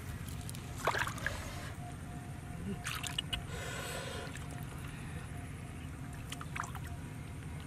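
Hands splashing and sloshing in shallow muddy water while groping for catfish, with short splashes about a second in, around three seconds, and again near the end.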